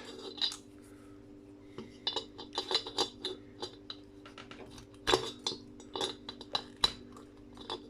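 Brass fittings and hand tools clinking and tapping against each other as they are handled: a string of short metallic clinks, busiest after about two seconds, over a steady low hum.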